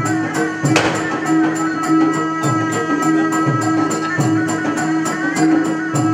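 Traditional Malay wayang kulit ensemble music: a steady percussive rhythm with a high metallic tick about three or four times a second under held pitched tones. A louder crashing stroke comes a little under a second in.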